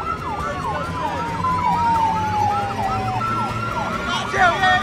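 Emergency vehicle sirens: one siren yelping in quick falling sweeps about three times a second, overlapping a second siren tone that slowly falls in pitch for about three seconds and then holds steady. A vehicle engine rumbles underneath.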